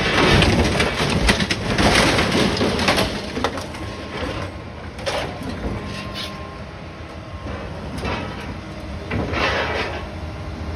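A John Deere excavator tearing into a school bus body: sheet metal and frame crunching, scraping and tearing over the steady run of the excavator's engine. The crunching is thickest in the first three seconds, then thins out to single bursts about five, eight and nine and a half seconds in.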